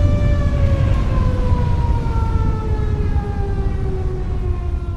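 Tornado warning siren (civil defense siren) winding down, its pitch falling slowly and steadily, over a heavy low rumble.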